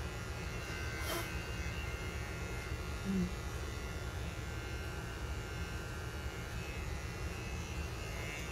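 Small cordless pet clippers buzzing steadily as they shave through a small dog's belly fur, with a short click about a second in and a brief louder bump about three seconds in.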